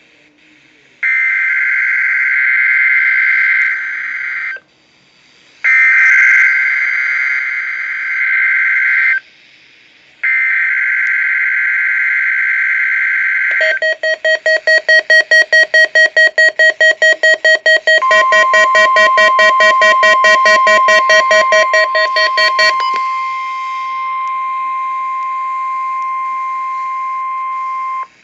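NOAA Weather Radio weekly test signal: three bursts of the SAME digital data header, each about three seconds long, with short gaps. Then comes a rapid electronic beeping at about five beeps a second, joined after about four seconds by the steady 1050 Hz warning alarm tone. The tone holds on alone once the beeping stops and cuts off near the end.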